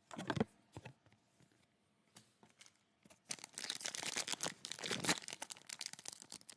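A foil trading-card pack wrapper being torn open and crinkled. A few short handling noises come first, then a dense crackling rustle starts about three seconds in.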